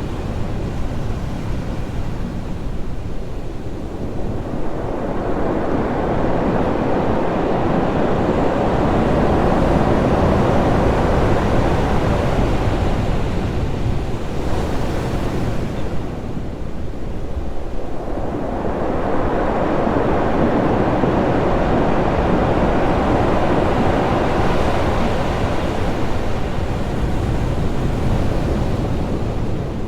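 Ocean waves crashing on rocks: a continuous rushing surf that swells up twice, building a few seconds in and again past the middle, with a lull between.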